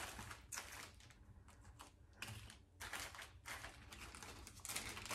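Faint, irregular clicking and rustling of jewelry being handled and taken out of its packaging, with beads and chain clicking and the wrapping crinkling.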